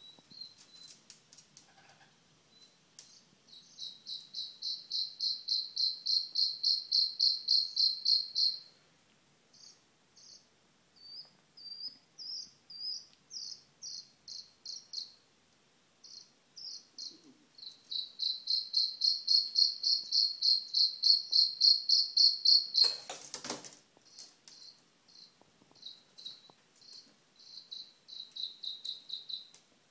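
Black francolin chicks peeping in rapid series of short high chirps, about five a second, with long runs twice and looser, uneven peeps between. A brief loud rustle or bump comes about three quarters of the way through.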